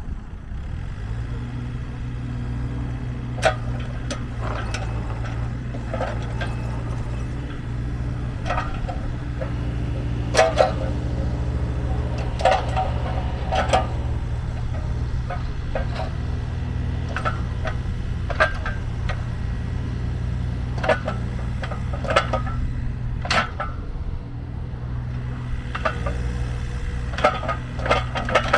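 Takeuchi TB230 mini excavator's diesel engine running steadily. It comes up to speed about a second in, with sharp clanks and knocks breaking in every second or two.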